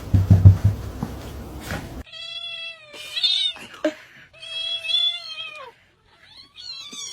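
A cat giving four long, drawn-out meows in a row, one wavering, one falling off at its end and the last rising. Before them, about two seconds of loud low thumping noise.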